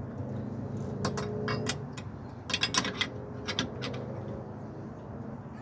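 Metallic clinks and light knocks from a slide hammer on the front wheel hub of a 2001 Toyota RAV4 as it is worked to pull out the hub and wheel bearing, in a few short clusters, over a steady low hum.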